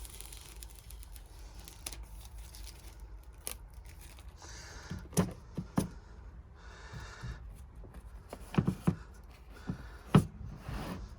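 Plastic backing layer being peeled off smoked headlight tint film: two short stretches of peeling, crinkling film, with a few sharp taps and knocks between them.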